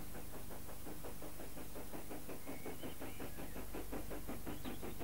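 An approaching train running with a fast, even chuffing rhythm over a steady hum, getting a little louder near the end.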